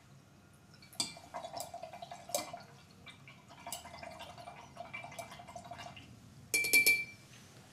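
Glass rods tapping and stirring in a glass jar of water: scattered small clicks and faint liquid sounds, then a ringing clink of glass on glass about six and a half seconds in.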